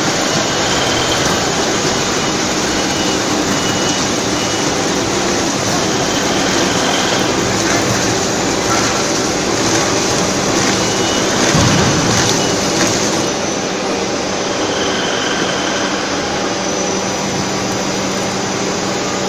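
Veneer peeling lathe and other plywood-mill machinery running: a steady, noisy din with a constant low motor hum.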